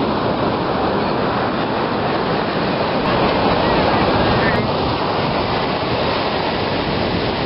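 Ocean surf breaking on a sandy beach: a loud, steady rush of waves that swells a little around the middle.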